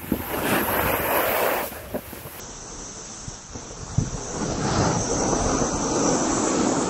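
Wind rushing over an Insta360 camera's microphone while moving at snowboarding speed down the slope. It is loud for the first second and a half, drops, then rises again from about four and a half seconds in.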